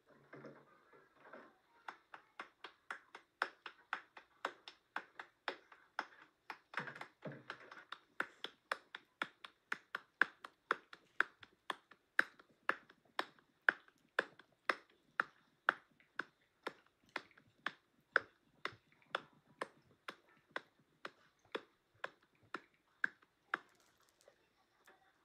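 A round of flatbread dough slapped back and forth between wet palms to flatten it, in a steady run of soft slaps at about two to three a second.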